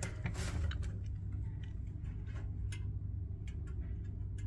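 Light, irregular ticks and clicks, a few a second, from small metal parts being handled inside an open gas water heater, over a steady low hum.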